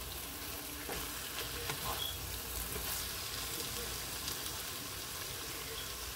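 Vegan ground meat, onions and slices of plant-based cheese sizzling steadily in a nonstick frying pan, with a few light clicks and scrapes of a spatula stirring.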